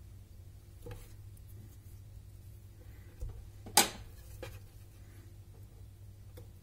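A few light knocks on a wooden cutting board, the loudest a sharp one about four seconds in as a whole potato is set down on it, over a low steady hum.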